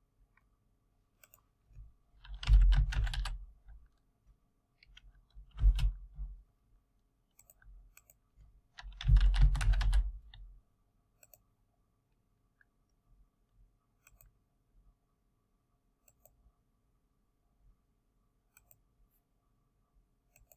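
Typing on a computer keyboard in three short bursts of rapid keystrokes, with a few faint scattered clicks in between and afterwards.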